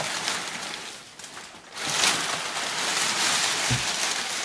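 Crumpled kraft packing paper rustling and crackling as it is pulled out of a cardboard box, growing louder about two seconds in, with a dull bump near the end.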